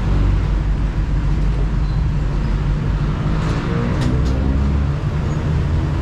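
Road traffic running as a steady low rumble, with a vehicle engine passing about three to five seconds in. A few light clicks come near the middle.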